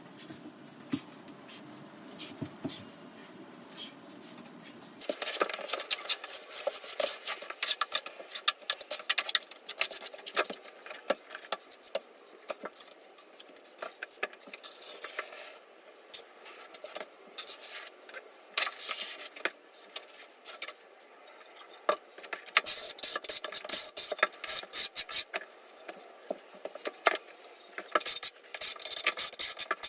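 Tile-laying work on a floor: hand tools scraping and tapping on porcelain tile and thinset mortar, a busy run of sharp clicks and scrapes. It is fairly quiet for the first few seconds, then the scraping and clicking start about five seconds in and grow denser toward the end.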